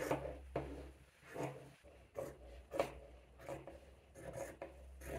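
Fabric scissors snipping through shirt fabric, a series of short cuts about one every two-thirds of a second.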